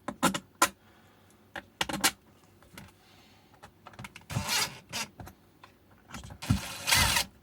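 Plastic e-bike battery casing and its screws being handled and pressed together: scattered clicks and knocks, then two short, louder scraping bursts, one midway and one near the end.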